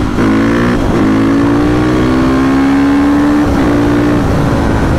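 A 450 cc supermoto's engine pulls under acceleration. Its pitch climbs slowly and steadily for about three and a half seconds, then falls back and levels briefly before fading into a broad rumble.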